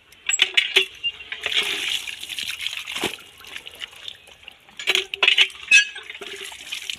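Water splashing as a wet, fire-singed goat skin is rubbed, squeezed and slapped on a wet brick floor while it is washed by hand. Bangles clink in sharp bursts, loudest just after the start and around five seconds in.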